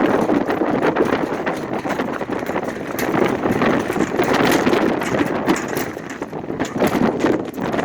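A sign shaking in gale-force wind, rattling and knocking rapidly and continuously against its mounting, with gusting wind.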